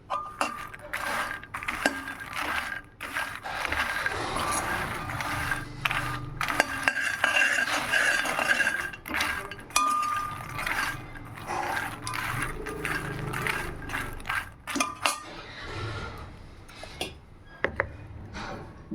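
Makhana (fox nuts) being stirred and tossed in a pan with a spatula: irregular dry rattling, scraping and clicking.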